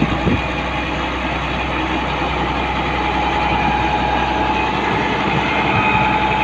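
Freshly overhauled Caterpillar D6D bulldozer diesel engine running steadily, a deep drone with a faint whine above it.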